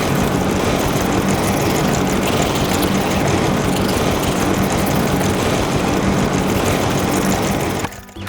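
A steady engine-like mechanical noise with a low hum, running evenly and cutting off near the end.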